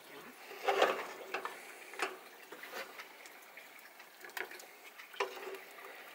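A wooden spatula scraping and knocking against a pan while scooping filling onto a tortilla: a few separate short clicks and knocks, the loudest cluster about a second in.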